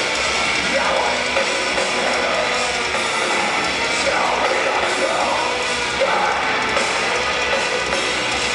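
Metalcore band playing live: distorted guitars and a drum kit in one loud, steady wall of sound, recorded from the crowd.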